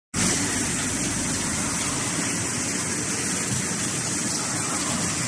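Cotton swab making machine running steadily: continuous mechanical noise with a strong hiss, no pauses or changes.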